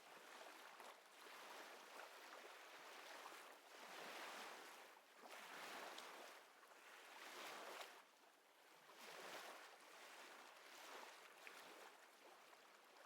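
Faint recorded ocean waves washing in, swelling and ebbing every second or two, as a relaxation background track.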